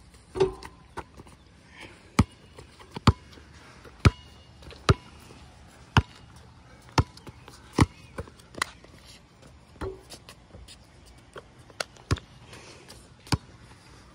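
Basketball bouncing on a concrete court: sharp single bounces roughly a second apart as the ball is dribbled, with a louder ringing hit near the start as a shot strikes the rim.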